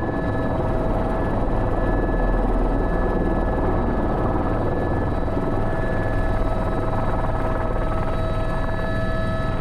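Airbus H125 helicopter running steadily, its Arriel turboshaft engine and rotor drive making a constant whine over the low beat of the rotor.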